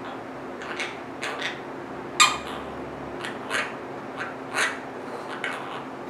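Small green pet parrot making a scattered series of short, sharp clicks and chirps, about a dozen, the loudest about two seconds in.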